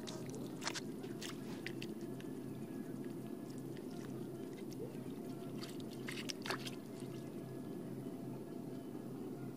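Wet mud squelching and crackling as hands push and work a bamboo tube into soft mud, with a few sharp wet clicks about a second in and a louder cluster about six seconds in.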